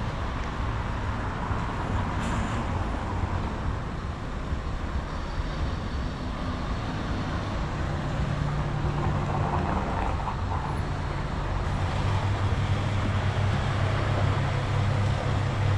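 Road traffic, with the steady low drone of a large vehicle's engine that grows louder about halfway through.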